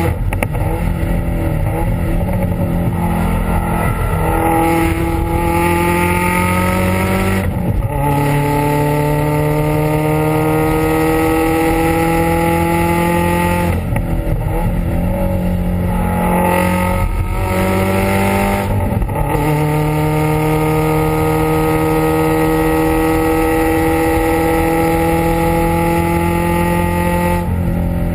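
Subaru WRX STI exhaust, its turbocharged flat-four under hard acceleration on track, heard close to the tailpipe. The note climbs steadily for several seconds at a time, broken by short drops about five times.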